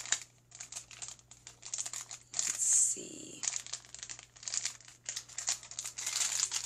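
Shiny foil wrapper crinkling and crackling as it is handled and crumpled in the hands, with irregular crackles and a louder burst a little before the middle.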